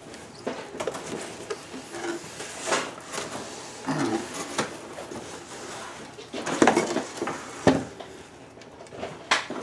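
Cardboard box and packing material being handled: rustling, scraping and scattered knocks as the 3D printer frame is worked out of the box by hand. The loudest clatter comes about two-thirds of the way through.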